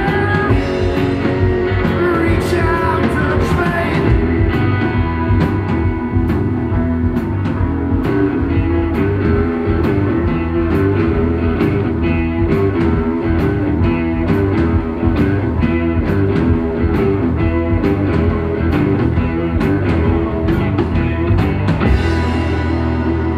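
Live rock band playing electric guitars, bass guitar and drum kit with a steady beat. Near the end the drums and cymbals stop and a low bass note rings on.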